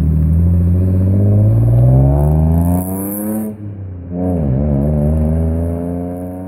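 Car engine revving: the pitch climbs steadily for about three seconds, drops briefly with a wobble, then climbs again and holds before cutting off abruptly.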